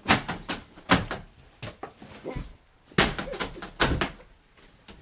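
A series of loud knocks and bangs in quick clusters about a second apart, with a short lull midway.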